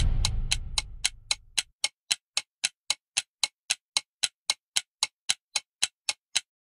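Intro music fading out, then a clock-like ticking sound effect at about four ticks a second that stops shortly before the end.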